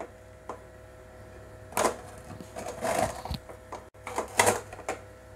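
Aluminium cake tin knocking and scraping against a large metal pan as it is lifted out with a cloth: a few short metallic clatters and scrapes, about two seconds in and again near four seconds.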